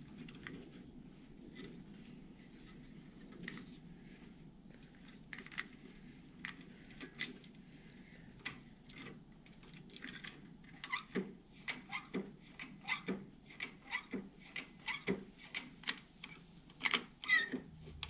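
Hands untwisting a wire twist tie and handling the cable and handle parts of a Greenworks electric lawn mower: soft rustling with small clicks and rattles, which come thicker and faster from about ten seconds in.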